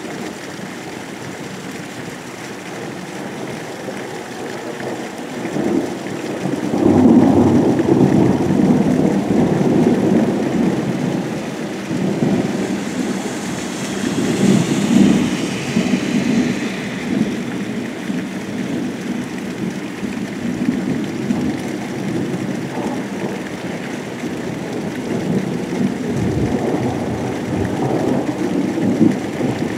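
Thunder rumbling in heavy rain: a long rolling peal swells about a quarter of the way in and rumbles on for several seconds, with another rumble near the end, over the steady hiss of rain.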